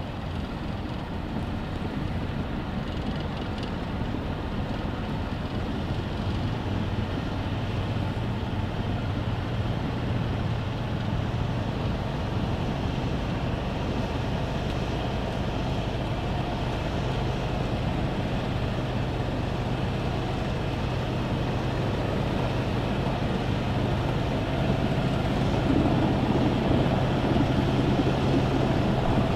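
Heavy diesel engine of a wheel loader working under load as it pushes a dead KAMAZ log truck. It is a steady low drone that grows gradually louder as the machines come closer.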